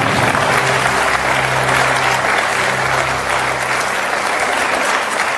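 Studio audience applauding over the quiz show's theme music. A low held note in the music fades out about four seconds in, leaving the applause alone.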